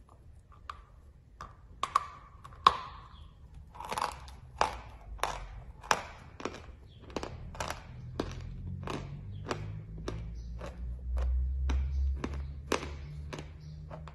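Chalk tile bitten and chewed close to the microphone: a few sharp snaps as the piece breaks off, the loudest about two and a half seconds in, then steady crunchy chewing at about two chews a second.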